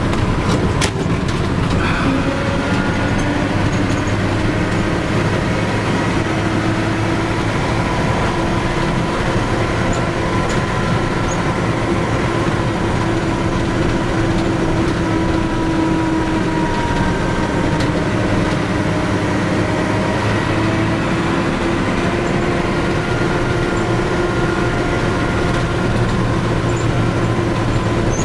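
1951 Chevrolet 3100 pickup's Thriftmaster straight-six engine running steadily on the road, heard from inside the cab together with road noise, its note rising and falling a little with speed.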